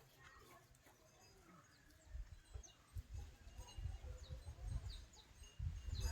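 Small birds chirping outdoors: a series of short, high, quickly falling calls starting a couple of seconds in. Irregular low rumbling thuds run under them and are the loudest part of the sound.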